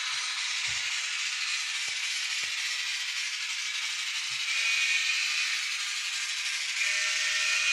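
DCC sound decoder in an N-scale model steam locomotive playing its running steam sound through the model's small speaker while the locomotive moves at speed: a steady, hissing rattle with no low end.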